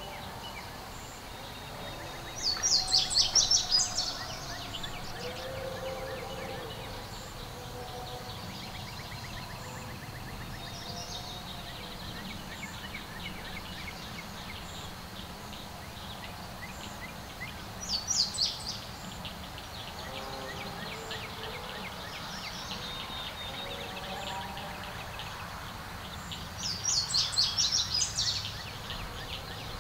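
A songbird singing three short, loud phrases of rapid high notes, the first a couple of seconds in, one in the middle and one near the end. Fainter calls from other birds and a steady outdoor background run underneath.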